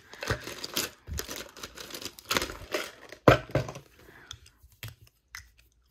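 Markers rattling and clicking against each other as a hand rummages through a cup of them. The loudest is one sharp click about three seconds in, and after it only a few light ticks.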